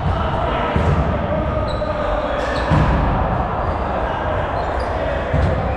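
Volleyball being struck during a rally, about three dull thuds a couple of seconds apart that echo in a large gym, with players' voices in the background.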